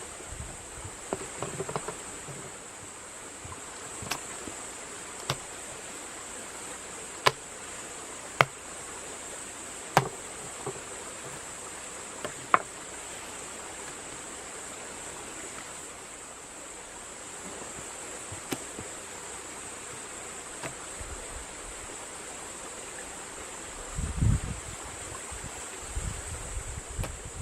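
Steady high-pitched insect trill in the background, with sharp single knocks every few seconds and a few low thuds near the end.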